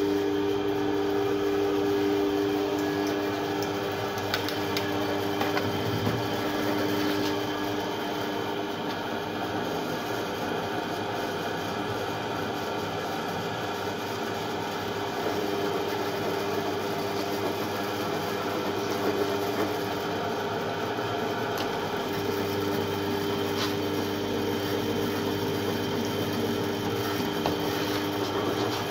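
Pillar drill press running, its bit drilling into a metal tube clamped in the machine vise: a steady motor hum with the scrape of the cutting bit.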